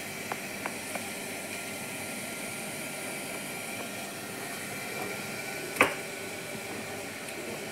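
Steady hiss throughout, with a few faint ticks in the first second and a single sharp click nearly six seconds in, the loudest moment.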